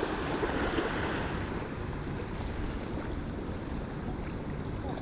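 Steady wash of sea water with wind noise on the microphone.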